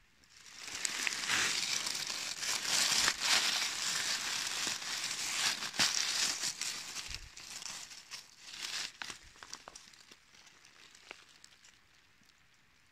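Dry fallen leaves crackling and rustling as a hand pushes through the leaf litter and picks a porcini mushroom. A dense crackle builds within the first second, stays thick for several seconds, then thins to scattered crackles and fades out about ten seconds in.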